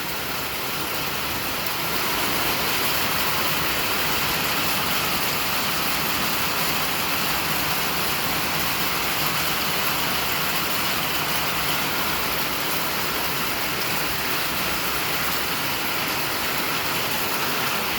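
Heavy hail falling in a steady, dense hiss, a little louder from about two seconds in.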